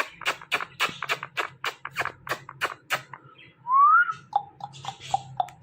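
Ringneck parrot calling: a fast series of sharp chirps, about four a second, then a loud rising whistle, then a run of short, evenly repeated whistled notes.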